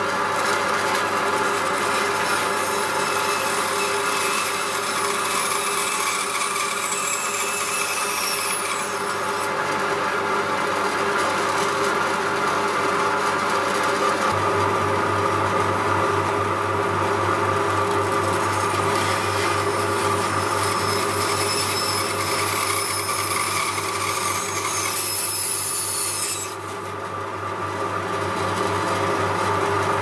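Bandsaw running, its blade cutting through a wooden block over the steady hum of the motor.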